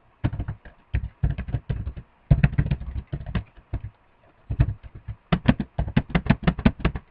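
Typing on a computer keyboard: a run of separate key clicks, a short pause about four seconds in, then a faster burst of keystrokes near the end.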